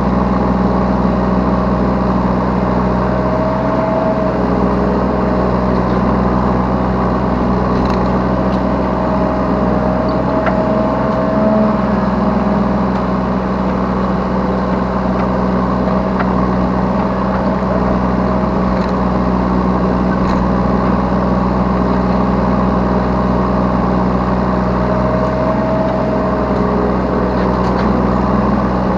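Diesel engine of a Yanmar B3 Sigma 3-tonne mini excavator running steadily while it digs and loads, heard from the operator's seat, with a higher whine rising and falling away a few times.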